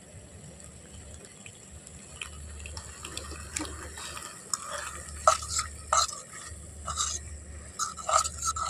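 A metal spoon stirring steaming macaroni in a non-stick kadai (wok), scraping and clicking against the pan amid the wet squelch of the pasta. The stirring grows louder and busier from about halfway through.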